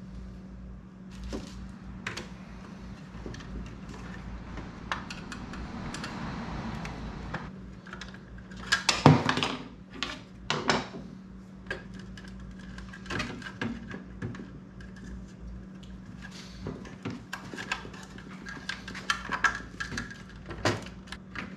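Small clicks and clatter of hands handling wires and parts inside a table saw's housing, with a louder knock about nine seconds in, over a steady low hum.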